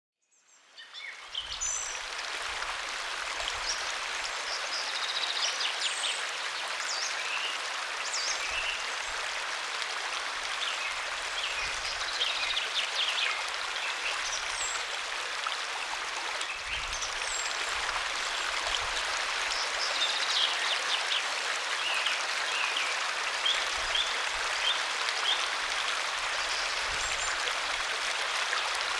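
Steady rush of a waterfall, fading in over the first second or so, with birds chirping now and then over the water.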